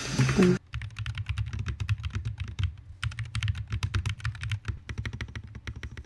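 Fast typing on a FUN60 magnetic-switch keyboard: a rapid, uneven run of key clicks.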